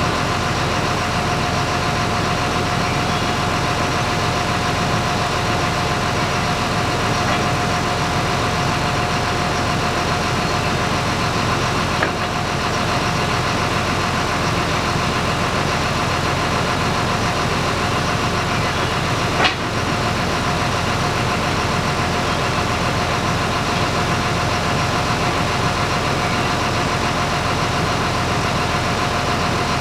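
An engine running steadily, with a sharp knock about twelve seconds in and another about seven seconds later.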